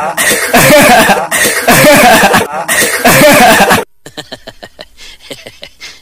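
Male lion roaring: four long, loud, harsh calls, then a run of short grunts that fade away at the end of the roar.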